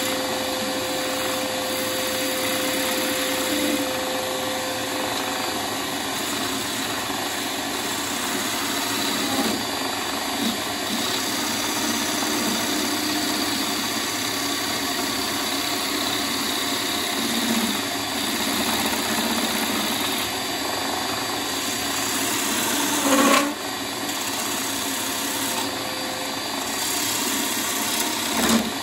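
Wood lathe spinning a bowl blank while a turning tool cuts it, a steady hiss of cutting over the machine's running. A short, loud knock comes about three-quarters of the way through, and another near the end.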